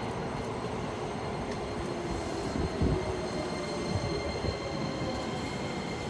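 Hokuso Railway 7500-series electric train rolling slowly along the platform as it pulls in: a steady rumble of wheels on rail with faint high steady tones, and a single thump about three seconds in.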